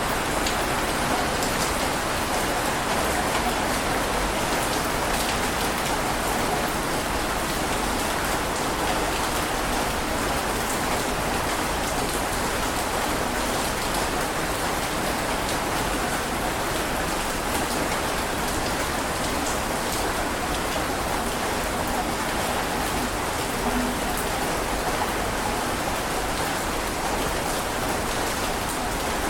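Steady rainfall, a dense, even hiss of drops with faint individual patters through it.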